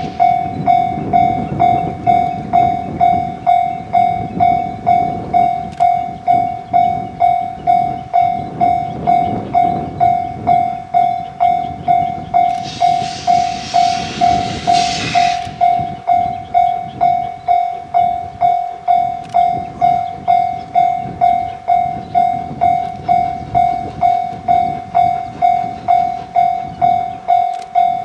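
Japanese level-crossing warning bell ringing steadily at about two strikes a second, over the low rumble of a passing train. A burst of hiss lasts a few seconds about halfway through.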